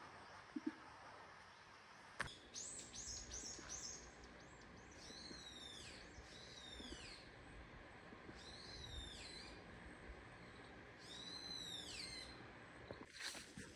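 Faint forest bird calling: a quick run of high notes, then a handful of high calls that arch up and sweep down, spaced a second or two apart, over a faint steady hiss. A single sharp click about two seconds in.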